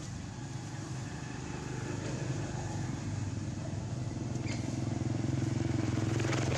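A small engine running steadily off-screen, growing louder toward the end, with a brief click about four and a half seconds in.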